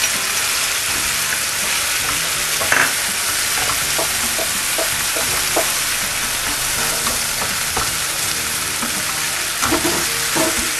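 Baby clam meat, garlic-chili paste and freshly added chopped onion sizzling in hot oil in a pan, with scattered scrapes and taps of a utensil stirring.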